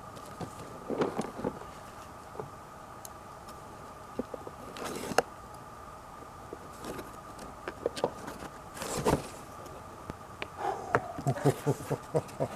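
Packaging being handled in an opened shipping box: irregular rustling and a scattered series of clicks and light knocks, over a faint steady hum.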